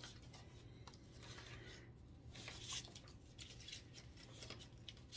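Faint rustling and light handling of a printed paper card, a few soft scrapes and ticks, over a low steady hum.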